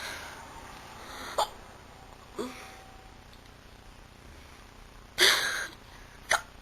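A young woman hiccuping: several short, sharp hiccups spaced a second or more apart, with a louder, longer breathy one about five seconds in.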